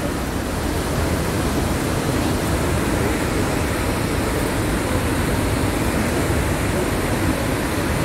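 Steady rushing noise of a large waterfall in heavy rainy-season flow, even and unbroken.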